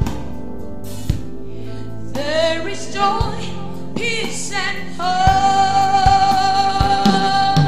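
Live gospel worship music: a female lead singer over keyboard and drum kit, her line bending through several notes before she holds one long high note from about five seconds in. A few drum strokes punctuate it.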